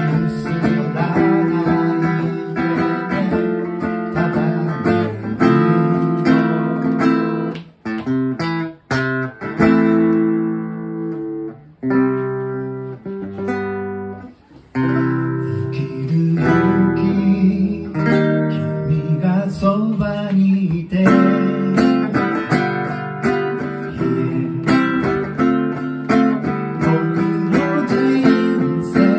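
Acoustic guitar strummed in a steady rhythm. About eight seconds in it breaks into a few short stabbed chords, then chords left to ring out and fade, before the steady strumming resumes.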